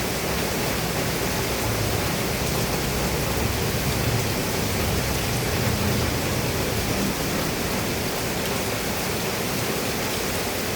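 Steady heavy rain falling on a roof, an even hiss with a low rumble underneath that swells slightly in the middle.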